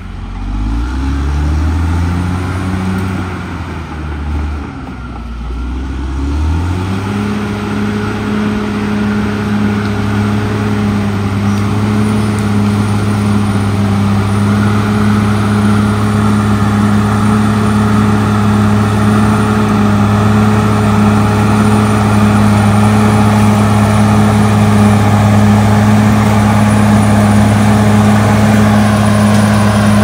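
Caterpillar D6R XL bulldozer's diesel engine: its revs dip and climb twice in the first several seconds, then hold steady and high as the dozer pushes soil with its blade.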